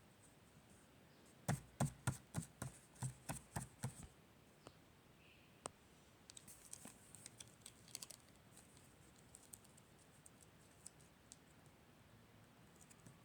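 Hands handling sticker paper: a quick run of about ten sharp taps in the first few seconds, then fainter scattered clicks and rustles.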